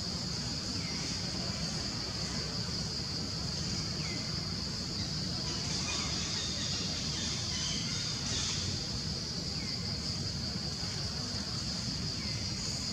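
Forest insects droning in a steady, high-pitched, unbroken chorus over a low rumble, with a few faint short chirps now and then.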